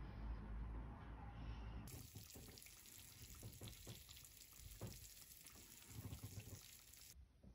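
Faint sizzling and crackling from a freshly baked lavash lasagna, its melted cheese topping still bubbling hot; it begins about two seconds in and cuts off abruptly near the end.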